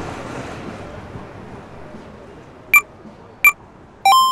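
Two short electronic beeps about three-quarters of a second apart, then a brighter electronic chime that starts near the end and rings out. Under them, a steady noisy background fades away over the first two seconds.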